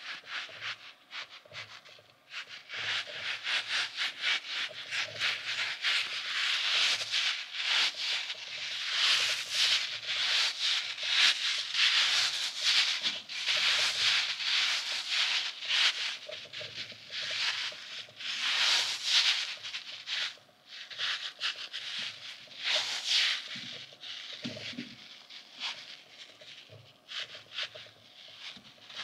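A soft, stretchy duck-shaped squeeze toy is kneaded, stretched and pressed between fingers close to the microphone. Its smooth rubbery skin gives a dense run of quick rubbing, squishing strokes, loudest in the middle and easing off near the end.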